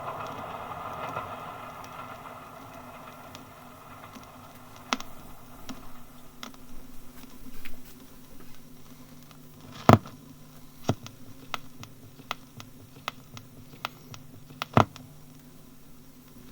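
A train recorded by the BBC dies away over the first few seconds. Then only an old disc's surface noise is left: a faint hiss and crackle with scattered sharp clicks, the two loudest pops about ten and fifteen seconds in.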